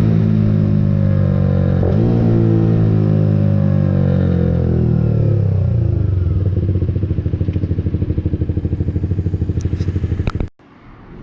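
Suzuki motorcycle engine running through its aftermarket exhaust, which is set to its loud mode without the dB killer. The engine speed eases down over the first few seconds into an even, pulsing idle, and the engine is switched off suddenly near the end.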